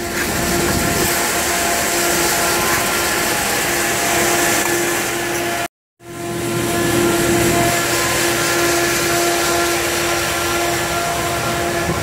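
Corn grain dryer running: a loud, steady rush of fan air with a constant hum.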